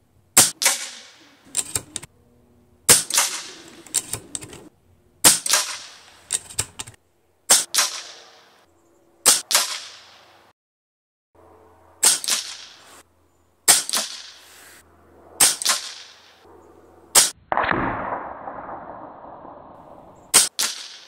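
RTI Arms Priest 2 PCP air rifle firing about ten shots, one every two seconds or so, each a sharp crack that trails off quickly, with lighter clicks between several of the shots. One shot near the end is followed by a rushing hiss that fades over a couple of seconds.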